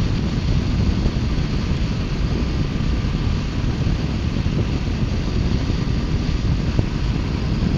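2018 Triumph Bonneville T120's 1200 cc parallel-twin engine running steadily at cruising speed, heard from the rider's seat mixed with wind rush over the microphone.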